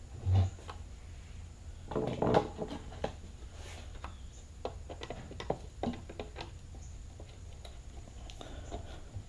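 A screw being driven back into the plastic shroud of a Black & Decker electric string trimmer. Small clicks and light knocks of the tool and housing being handled, with a low thump near the start and a louder cluster of knocks about two seconds in.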